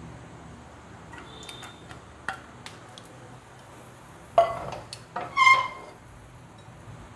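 Cookware clatter: a few light ticks and clinks, then two louder rattling knocks with a brief metallic ring, as a frying pan is shifted and set back down on a glass hob.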